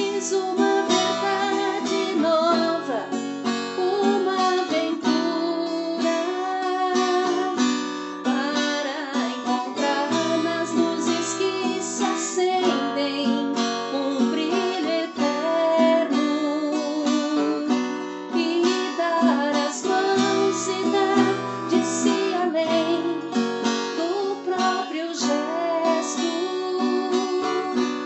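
Music: a song carried by strummed acoustic guitar.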